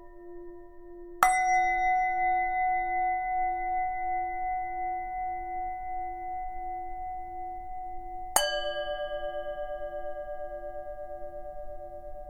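Tibetan singing bowl struck twice, about a second in and again about eight seconds in. Each strike rings on in several steady overtones that slowly fade, over a lower tone that keeps pulsing.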